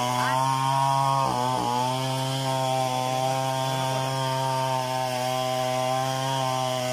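Two-stroke chainsaw engine running at a steady speed, its bar not in the wood, with a brief dip in pitch about a second in.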